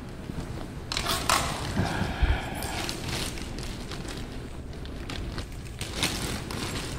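Handling noises in irregular bursts: a plastic bag rustling and small metal washers and screws being shifted and clinking on a tile floor.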